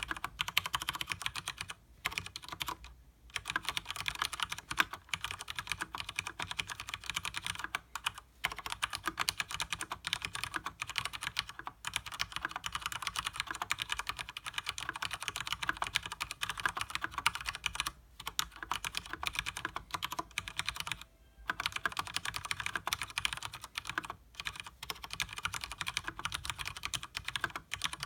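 Continuous fast typing on a Leopold FC900R mechanical keyboard with Cherry MX Speed Silver linear switches and double-shot PBT keycaps: rapid dense key clacks, with a few short pauses.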